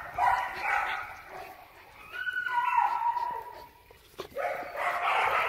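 A dog whining: three long, high-pitched whines, the middle one dropping in pitch partway through.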